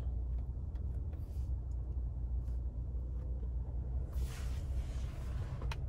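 Steady low rumble in a car's cabin, with a few faint clicks and a brief hiss about four seconds in.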